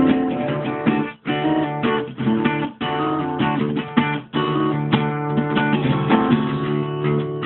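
Acoustic guitar strumming chords, with short breaks in the strumming about every one and a half seconds.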